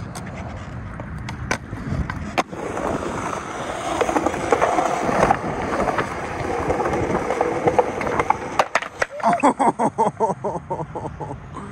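Skateboard wheels rolling, with a few sharp board clacks in the first two and a half seconds. About nine seconds in, a quick run of rattling clicks takes over.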